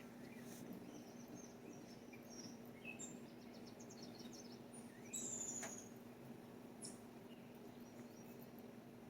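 Faint wild songbirds chirping and calling in short, scattered notes, with one louder high, slightly falling note about five seconds in, over a faint steady low hum.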